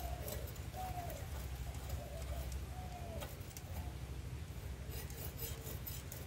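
Bata fish being scraped against a boti blade to take off its scales, a few short scraping clicks, while a dove coos several times in the background, short falling calls about a second apart.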